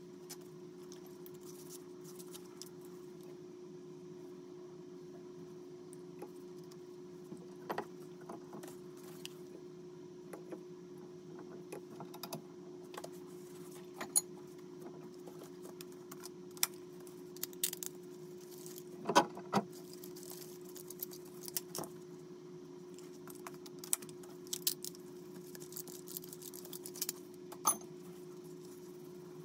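Scattered light clicks and metallic taps of hands and tools working on the shower valve's supply piping behind the tiled wall, with a few sharper knocks, over a steady low hum.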